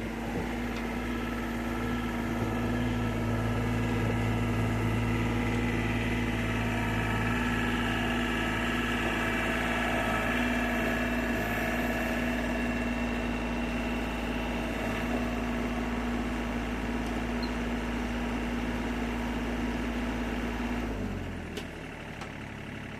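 Excavator's diesel engine running steadily as the machine drives up onto a trailer. About two seconds before the end, the engine speed drops and the sound settles lower.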